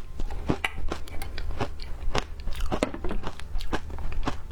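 Frozen ice being bitten and chewed close up: sharp, irregular crunches several times a second, over a steady low hum.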